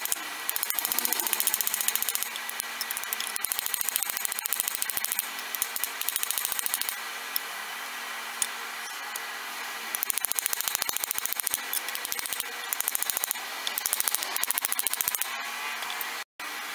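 Small hammer peening the end of a brass pin on a makeshift anvil: quick light metallic taps, several a second, in runs broken by short pauses, slowly flattening the metal.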